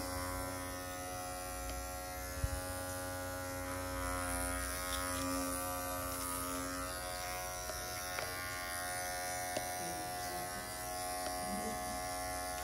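Cordless electric dog-grooming clippers running with a steady buzz as they shave a dog's curly coat, with one short click a couple of seconds in.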